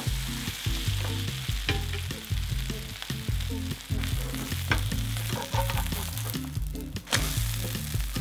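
Seafood green onion pancake sizzling in oil in a frying pan, with sharp clicks and scrapes of a spatula against the pan as it is pressed and turned over. Background music with a low bass line plays underneath.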